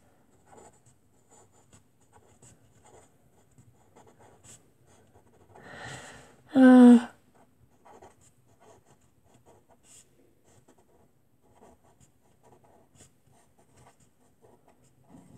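Pen scratching on paper in short strokes as numbers are written out by hand. A brief burst of voice comes about halfway through.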